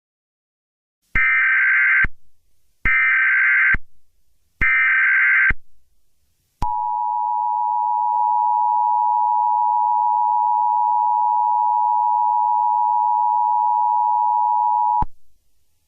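Emergency Alert System SAME header: three short bursts of warbling digital data tones, about a second each with short gaps, then the EAS two-tone attention signal, a steady loud dual-tone beep held about eight seconds that cuts off abruptly. It is the standard opening of an EAS broadcast, here heralding a tornado warning.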